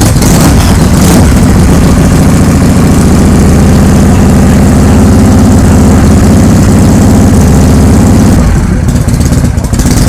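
Custom chopper motorcycle engine running loudly, just started by kickstart. It eases off slightly near the end.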